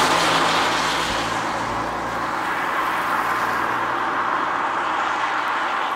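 A car passing on a wet road: tyre hiss with a low engine hum, loudest at the start and fading over the first couple of seconds as it moves off. A steady, quieter hiss remains.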